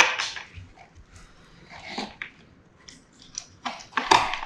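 Scattered light clicks and taps of small plastic toys being handled on a hard tabletop, with a louder knock near the end.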